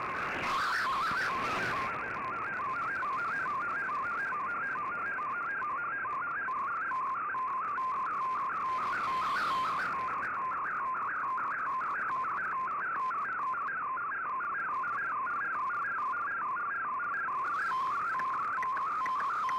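Shortwave receiver playing an MFSK64 digital picture transmission from Shortwave Radiogram: a warbling data tone sliding rapidly up and down in a fast repeating pattern over steady band hiss. Brief crackles of static come through near the start and about halfway.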